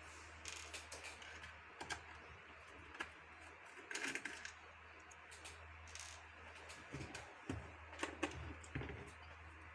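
Faint, scattered clicks and taps of a magnetic-tip screwdriver turning screws out of a patient monitor's plastic back case, over a low steady hum.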